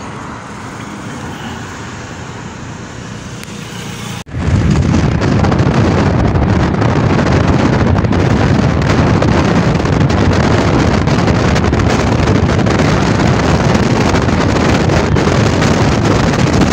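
Road noise from a moving car. About four seconds in, after a brief drop-out, it turns much louder, with heavy wind buffeting on the microphone over a low rumble.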